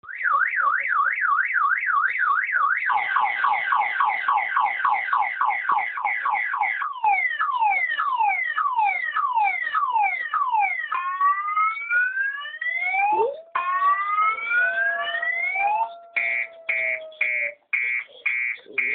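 Car alarm siren sequence played through computer speakers. It cycles through a fast warble, then rapid falling sweeps, then slower falling sweeps, then rising whoops, and ends in a run of short beeps about two a second. A lower held tone runs alongside for a few seconds after the middle.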